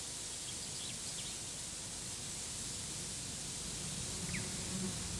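Quiet outdoor garden ambience under steady tape hiss, with a few faint, short bird chirps.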